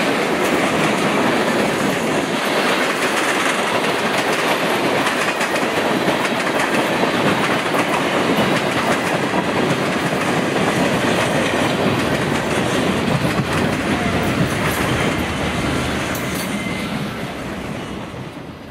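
Freight train of boxcars and tank cars rolling past, a steady noise of steel wheels running on the rails, fading over the last couple of seconds as the end of the train goes by.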